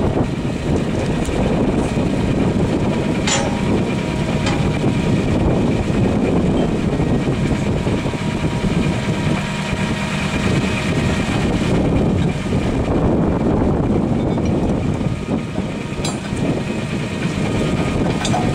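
Heavy vehicle engine idling steadily. A sharp metallic clink about three seconds in and a few fainter knocks later come from hand tools on the rail and tie plates.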